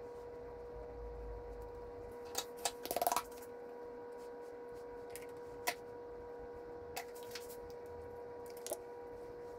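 Small clicks and taps of cosmetic containers being handled, a small bottle and a cushion compact, with a short rattling cluster of clicks about three seconds in and single clicks scattered after. A steady faint hum runs underneath.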